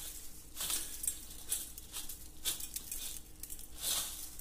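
Crisp fried gram-flour sev rustling and crackling as bare hands toss and mix it in a stainless steel bowl, in repeated surges about once a second. It is handled lightly so it does not break up.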